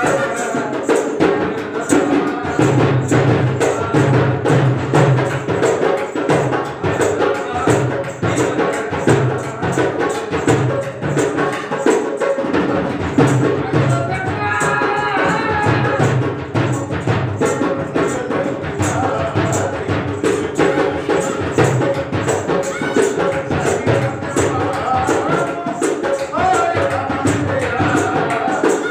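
Music with a steady, quick percussion beat of drums and jingling hand percussion. A wavering melody line stands out briefly about halfway through.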